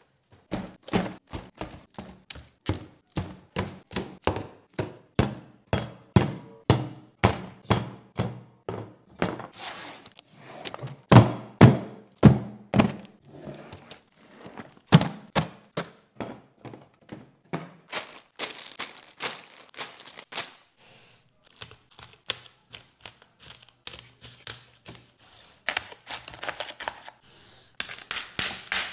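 A run of thunks and knocks, about two a second, as cans and plastic bottles of drinks are handled and set down on a wooden table. In the last few seconds comes denser crackling as plastic shrink-wrap on a multipack is handled and cut with scissors.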